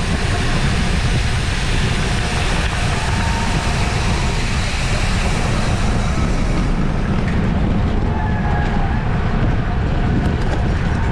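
Steady, loud wind rumble buffeting the microphone of a camera moving at bike-race speed.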